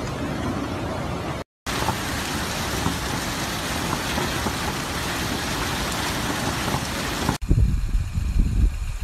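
Steady rush and splash of floodwater: first a swollen river, then, after a brief dropout, water welling up around a manhole cover and spilling over a paved walkway. About seven and a half seconds in it gives way to a low, gusting rumble.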